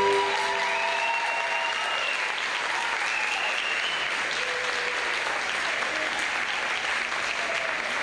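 Audience applauding, with a few high cheering calls over the clapping in the first few seconds.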